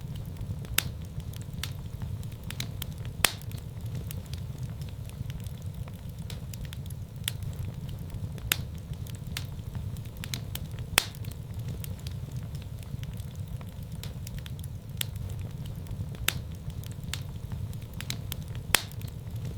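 Wood fire burning in a fireplace: a steady low rumble of flames with scattered sharp crackles and pops, a few of them distinctly louder than the rest.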